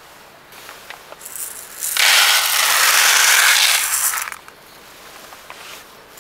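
Uncooked rice grains pouring onto parchment paper in a pot, a dense rush of grains for about two seconds starting about two seconds in, with a few light clicks before it.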